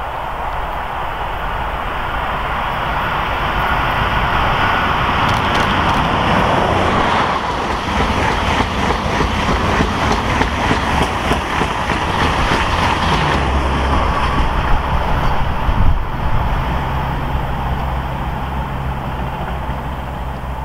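EP20 electric locomotive hauling a passenger train past at speed: a rising rush of wheels on rails, with a rapid run of wheel clicks over rail joints in the middle. A steady low hum follows as the train goes by.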